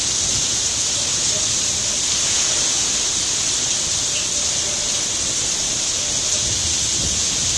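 Heavy cyclone rain pouring down in a steady, loud hiss, with wind buffeting as an uneven low rumble underneath.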